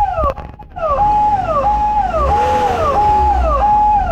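Electronic vehicle siren-type horn sounding a repeating warning tone: a held note that drops in pitch, about one and a half times a second, over a low rumble.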